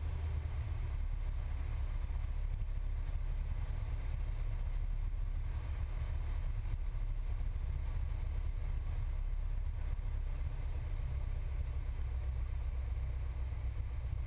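Cessna 172's piston engine running with a steady low drone on final approach to land.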